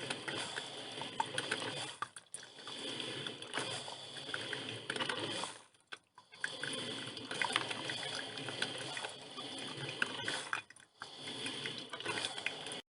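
Drip filter coffee machine brewing: hot water gurgling and spitting through the machine, with fine crackling clicks and a few short breaks.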